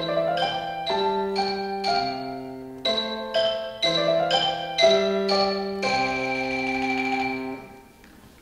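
Marimba and grand piano playing the closing bars of a short duet in struck, ringing notes. About six seconds in the marimba rolls the final note on its fermata under a held piano chord for about a second and a half, then the sound stops and dies away.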